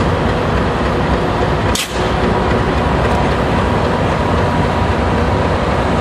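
Train running, a loud steady rumble with faint steady tones, broken by a brief drop about two seconds in.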